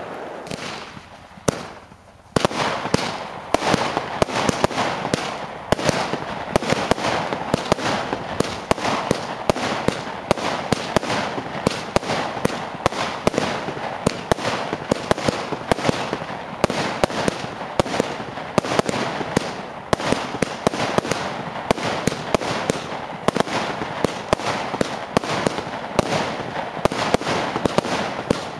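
Fireworks from a small consumer display kit, shells rising and bursting in quick succession as a steady stream of sharp bangs, after a brief lull about two seconds in.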